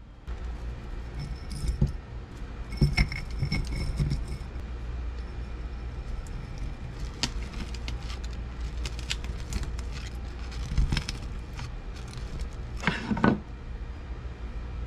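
Bare copper wire jangling and clinking as it is dropped into a crucible and packed down with a wooden stick, with a few louder knocks about 13 seconds in. A steady low hum runs underneath.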